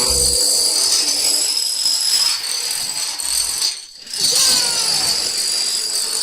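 A digitally altered variation of a Pocoyo cartoon sound effect: a bright, rattling, jingling noise, with a brief drop-out about four seconds in.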